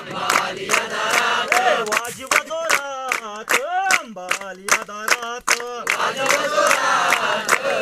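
A group clapping in a steady rhythm, about three claps a second, while chanting together. In the middle a single voice sings a line alone with its pitch rising and falling, and then the group comes back in: call-and-response singing.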